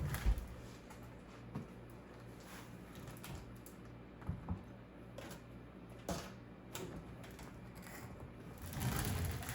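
Scattered light clicks and taps, irregular and about a second or so apart, over a faint steady low hum, with a longer rustling noise near the end.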